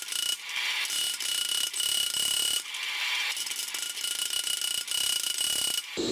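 A power tool working metal: a steady high whine over a harsh rasping noise, breaking off and changing abruptly several times.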